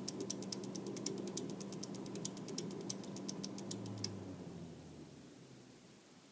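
Seasonic computer power supply making an odd rapid clicking, about eight ticks a second, over a low hum. The clicking stops suddenly about four seconds in and the hum then dies away.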